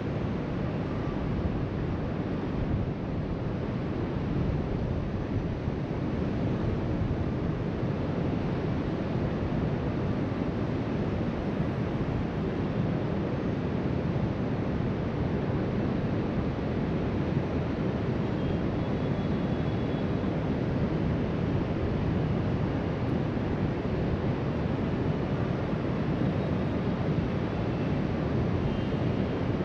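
Steady wash of ocean surf breaking on a beach, heard from high above the shore, with wind rumbling on the microphone.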